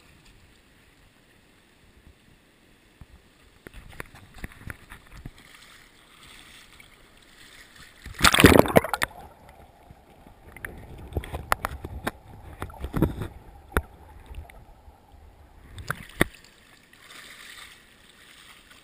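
Action camera plunged into the river with a loud splash about eight seconds in, then muffled underwater rushing with sharp clicks and knocks and a steady hum, until it comes back out of the water about sixteen seconds in. River current hisses before and after.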